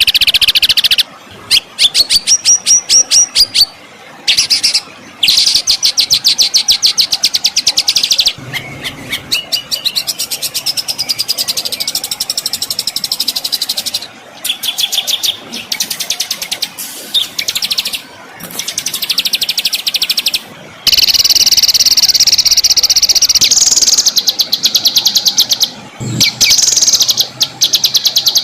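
Recorded songbird song in harsh, rapid-fire strings of sharp notes and rolling trills, about ten notes a second, cut into phrases by short abrupt gaps.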